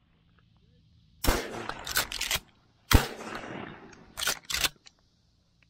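Shotgun fired twice at doves about a second and a half apart, each shot rolling on in echo, then two more sharp reports close together near the end.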